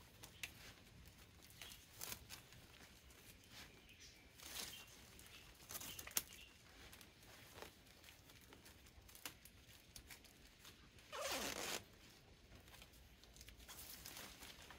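Red plastic tape being pulled, stretched and wrapped tight around an air layer on a tree branch: short scattered crinkling rasps, the longest about three-quarters of the way through.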